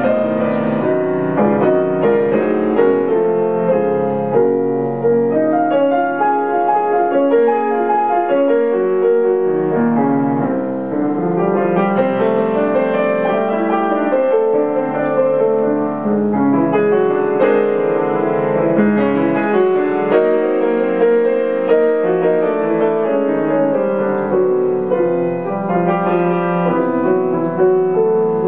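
Solo grand piano playing a dense, continuous flow of overlapping notes.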